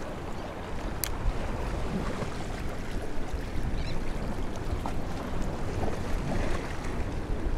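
Wind buffeting the microphone, with waves lapping against the jetty rocks. A single sharp click comes about a second in.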